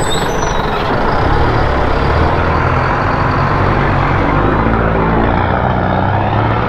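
Motorcycle engine running while riding, with a steady rush of wind over the microphone; the engine pitch shifts up and down near the end.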